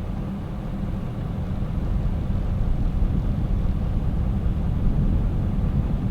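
A truck driving, with a steady low rumble of engine and road noise.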